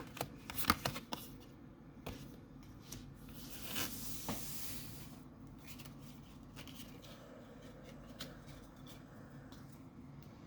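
Pokémon trading cards and packs being handled: a few quick clicks and flicks in the first second, then a longer rustle about four seconds in, then only faint handling.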